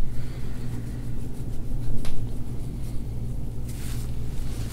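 Steady low room rumble, with a brief soft noise about two seconds in and a short hiss near the end.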